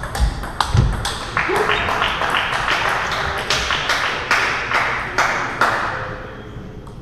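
Table tennis balls clicking off bats and tables, many sharp ticks from several tables in a hall, with two heavy footfalls on the wooden floor within the first second. From about a second and a half in to near the end, a spell of broader hissing noise lies under the clicks.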